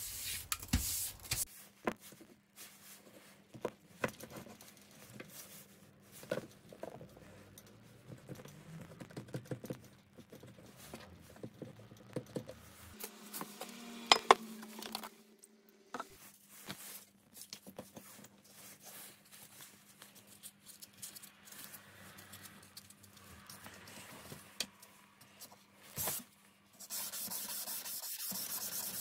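Small handling noises on a wooden workbench: taps, clicks and light brushing, with one sharper knock about halfway through. Near the end, a steady rasping starts as sandpaper is rubbed back and forth along the steel blade of a knife, hand-sanding it.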